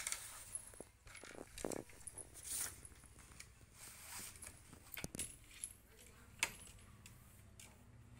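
A toddler's hands and knees on a wooden slat floor and sheets of paper: scattered light taps, clicks and rustles, with one sharper click about six and a half seconds in.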